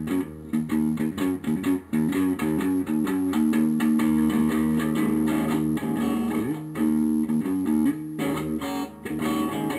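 Background music played on a guitar, its notes changing every fraction of a second.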